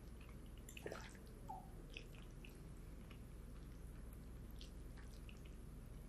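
Faint eating sounds: a fork working through cheesy baked spaghetti in a ceramic baking dish, with a few light clicks and soft squishes, the sharpest click about a second in.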